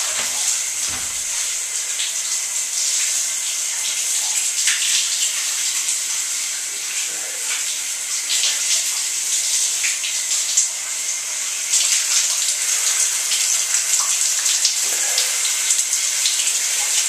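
Shower running: a steady hiss of water spray, with uneven splashes as the water falls on a person's body.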